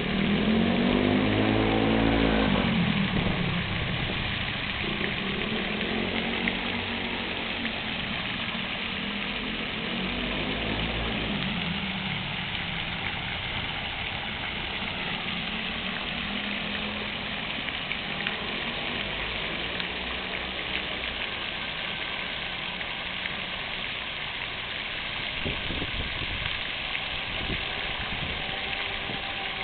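Fountain water splashing steadily, with road vehicles passing by several times; the loudest pass comes in the first few seconds.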